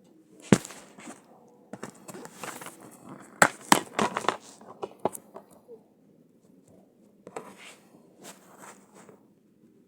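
Handling noise from a DVD case being turned over and handled: a few sharp clicks, the loudest about half a second in and a cluster around three and a half to four seconds in, with rustling between, fading to quieter handling in the second half.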